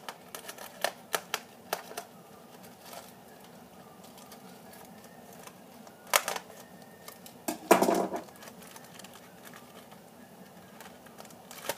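Knife tip pricking and slitting the plastic film over a foam tray of microwave bacon: scattered sharp clicks and taps, with a louder click about six seconds in and a fuller burst of crinkly handling noise around eight seconds.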